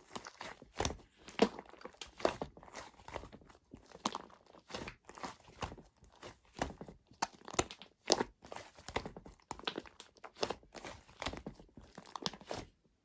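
Shaving foam being squeezed and crushed by hand: a dense, irregular run of crunching and crackling that stops suddenly near the end.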